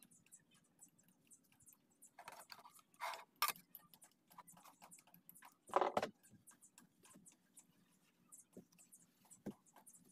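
Faint, irregular scuffing and rubbing of a hand working release wax over the inside of a boat mold, with scattered light clicks and scratches. A short, louder knock comes about six seconds in.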